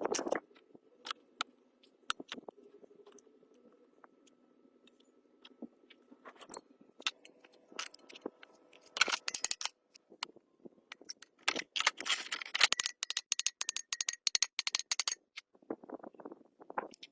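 Scattered sharp clicks and taps, with a fast run of clicks for about three seconds in the second half, over a faint steady hum.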